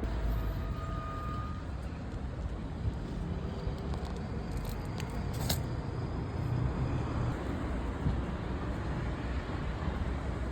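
Steady low rumble of distant road traffic, with a few faint ticks about halfway through.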